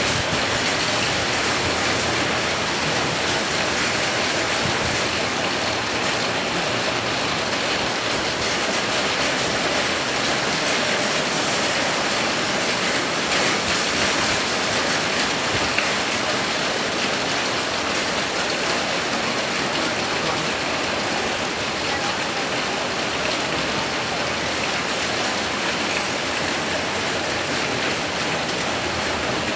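Heavy rain pouring down steadily in a rainstorm, a loud, even hiss of downpour.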